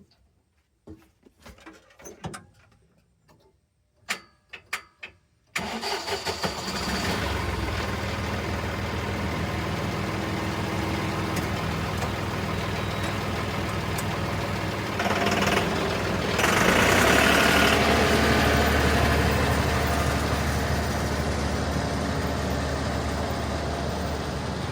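A few light clicks and knocks, then a Massey Ferguson diesel tractor engine cranks and catches about five seconds in and runs steadily. It gets louder about eleven seconds later.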